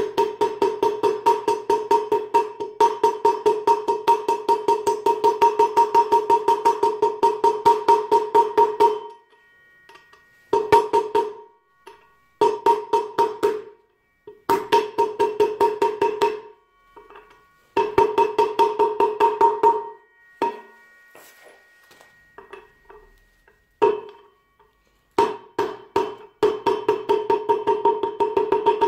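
Hammer striking a steel socket used as a drift on a scooter wheel bearing in the aluminium hub, about four blows a second with a ringing metallic note. It comes in several runs of blows with short pauses between them, the longest lasting about nine seconds.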